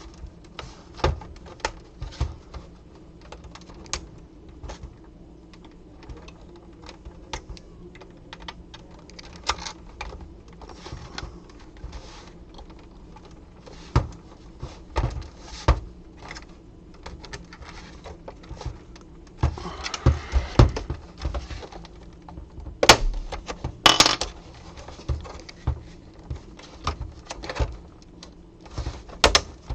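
A PlayStation 4 CUH-1215A console's plastic cover being pried off its housing with a metal tool: scattered light clicks and snaps as the locking clips give, a short stretch of scraping about twenty seconds in, and two louder knocks a few seconds later. The clips on this model are stiff and hard to release.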